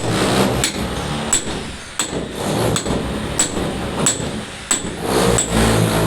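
Hammer blows at a steady pace, about three every two seconds, each strike with a short metallic ring, over a low steady hum.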